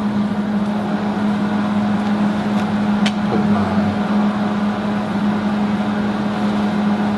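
Flux-core wire-feed welder switched on, humming steadily, with one sharp click about three seconds in.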